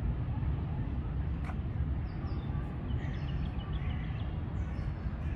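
Outdoor ambience of a park with a steady low rumble and a few faint bird chirps in the middle, plus one brief click about a second and a half in.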